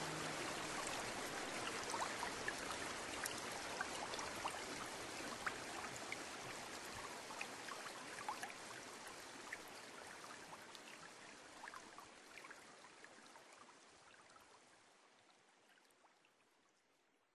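Water running and trickling, with scattered small drip sounds, fading out steadily to silence.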